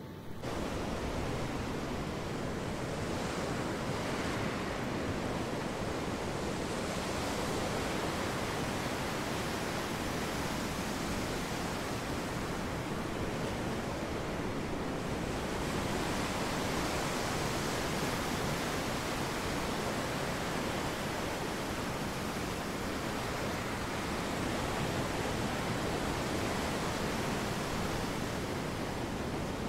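Steady ocean surf washing on the shore, with wind, rising and falling gently in long swells.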